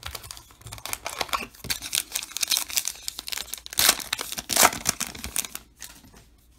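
A baseball card pack's wrapper being torn open by hand: irregular crinkling and ripping, with two sharper rips a little past the middle.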